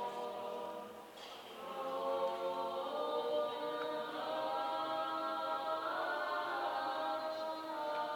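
Unaccompanied church choir chanting, several voices holding long, slow notes together. The singing thins about a second in and swells again.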